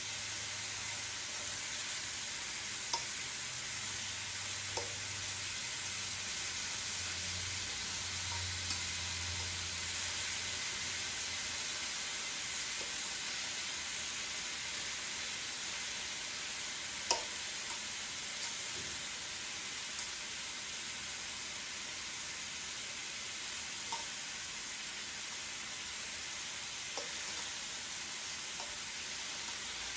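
Shrimp frying in oil, sizzling steadily, with a few sharp taps, the loudest about 17 seconds in.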